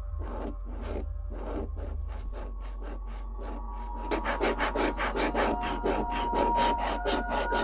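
A red pencil scribbling on paper in quick back-and-forth strokes, about four or five a second. About halfway through the strokes turn louder and faster, as the scribbling grows harder.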